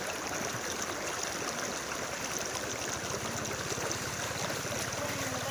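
Steady rush and slosh of floodwater as people wade through it and a motorcycle is pushed through the water.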